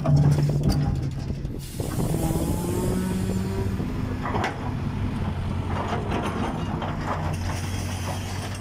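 Heavy diesel machinery running steadily: a Caterpillar 966D wheel loader's six-cylinder diesel engine close by, with an excavator working beside it.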